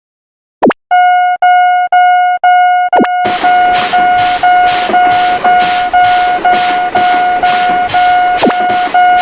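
Railroad crossing warning alarm ringing: one pitched electronic tone pulsing evenly about twice a second. About three seconds in, a steady hissing rush joins it, with short whooshes near three seconds and near the end.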